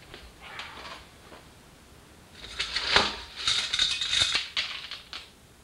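Hog ring pliers and metal hog rings clicking and clinking, with the seat cover rustling, as the cover is ringed down to the seat frame. A clattery rattle starts about two seconds in and lasts about three seconds, with two sharp clicks.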